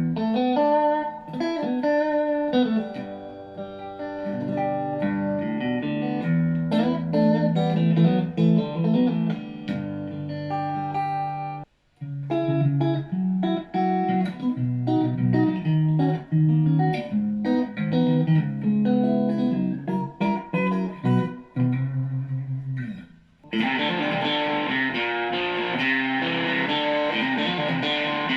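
Electric guitar played through a Fender Frontman Reverb amp with effects pedals, picking melodic single-note lines and chord shapes. It stops briefly near the middle, and about five seconds before the end it changes to a brighter, denser, fuller-sounding tone.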